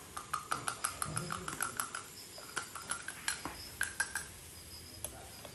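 Small metal spoon clinking repeatedly against the clam shells and the oil dish as scallion oil is spooned onto grilling clams. The clinks have a short ring and come quickly, about five a second, for the first two seconds, then more sparsely until about four seconds in.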